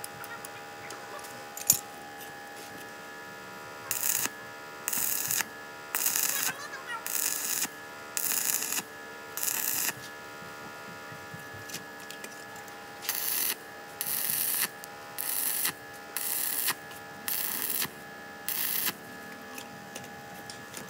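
Stick-welding arc from a DC inverter MMA welder laying short tack welds: about a dozen half-second bursts of hissing, in two runs of about six, over a steady hum. A single sharp click comes about two seconds in.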